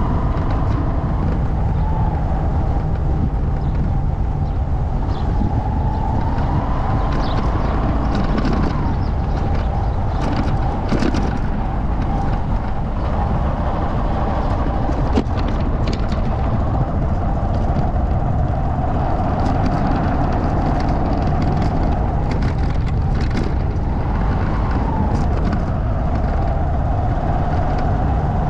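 A vehicle engine under way on a rough dirt track. It gives a steady drone whose pitch drifts up and down with speed, over a low rumble, with scattered knocks and clicks from the bumpy ground.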